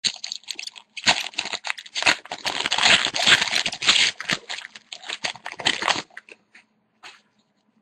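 A hockey card pack's wrapper being torn open and crinkled: dense crackling for about six seconds, with a brief pause about a second in, then a few faint rustles near the end.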